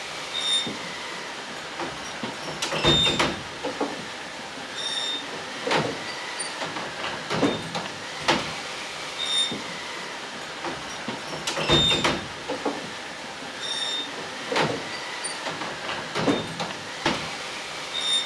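Found-object instruments playing slow, sparse theatre sound: irregular knocks and clanks, short high pings recurring every couple of seconds, and faint creaking glides that rise and fall.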